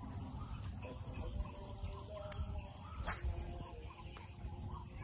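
Swamp ambience: birds calling in short, scattered notes over a steady high insect drone and a low wind rumble, with one sharp click about three seconds in.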